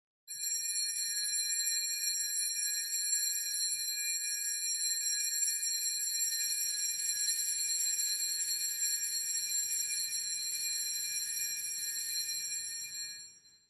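Altar bells rung without a break at the elevation of the chalice: a steady, high-pitched ringing of several tones together, fading out near the end.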